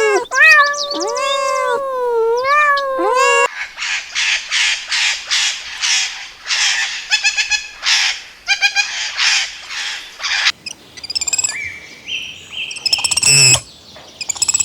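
A cat meowing in long calls that glide up and down in pitch, cut off about three and a half seconds in by a run of harsh, rapidly repeated bird calls. Near the end come fainter high chirps that step upward in pitch.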